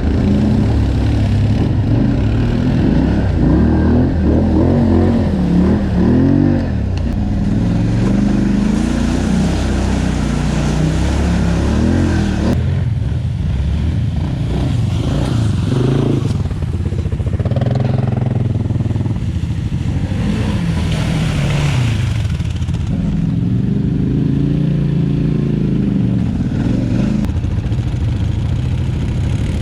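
ATV engine running under changing throttle on a trail, its pitch rising and falling repeatedly.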